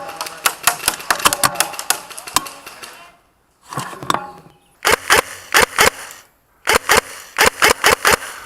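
Airsoft guns firing: rapid sharp cracks of BBs being shot, in short strings of several shots at about five or six a second, with two abrupt breaks in between.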